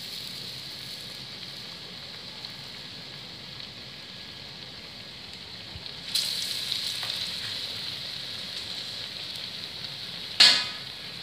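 Battered bread slices deep-frying in hot oil in a steel kadhai, a steady sizzle that surges about six seconds in as another batter-coated slice goes into the oil, then slowly eases. A short, sharp burst near the end is the loudest sound.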